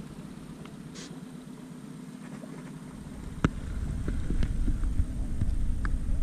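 A low steady hum with rumbling noise on the microphone, which grows louder about three seconds in. A single sharp knock comes shortly after, followed by a few faint clicks.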